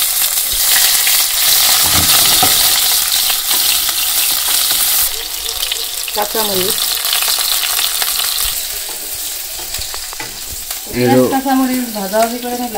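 Chopped onions sizzling in hot oil in a kadai as they are stirred and fried. The sizzle is loudest for the first few seconds, then settles lower. A short voice is heard near the end.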